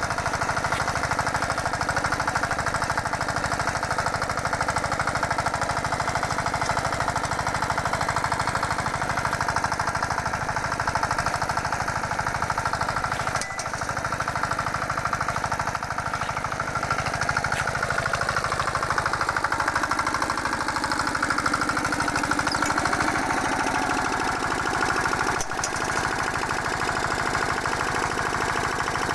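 Engine of a small walk-behind rotavator-cultivator machine running steadily. About two-thirds of the way through, part of its sound falls in pitch.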